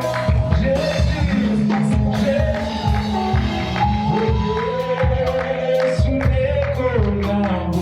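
Live gospel worship music: a band with bass and regular drum and tambourine hits under a sung melody line.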